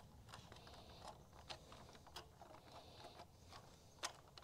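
Near silence, broken by a few faint clicks and ticks, the clearest about four seconds in, from wires being handled and pushed into a plastic trailer junction box.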